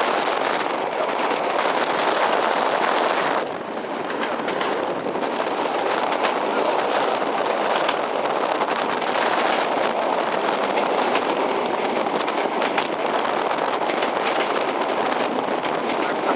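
PKP TLK passenger train running along the track, heard from on board: a steady rumble of wheels on rail with scattered clicks. It briefly goes quieter about three and a half seconds in.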